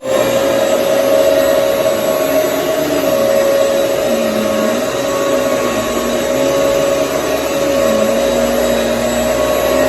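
Hoover EliteSwivel upright vacuum cleaner running steadily, a constant motor whine with a lower tone that wavers slightly up and down.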